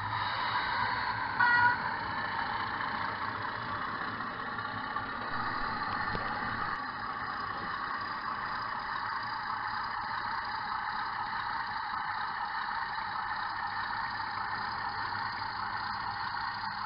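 Model railway sound capsule playing a recorded Class 31 diesel locomotive running, heard thin through its small speaker, with a short horn toot about one and a half seconds in.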